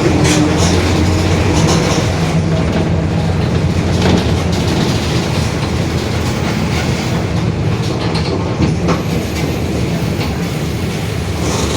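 Mercedes-Benz OF-1721 BlueTec 5 bus under way, heard from inside: steady drone of the diesel engine and drivetrain with the differential growling, over body rattles and a few light knocks.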